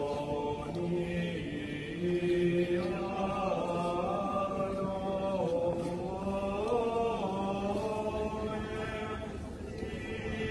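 Small choir singing a slow chant in long held notes that glide from one pitch to the next.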